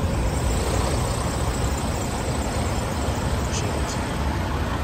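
Steady low rumble and hiss of a truck stop lot among parked semi-trucks, with wind buffeting the microphone; no single event stands out.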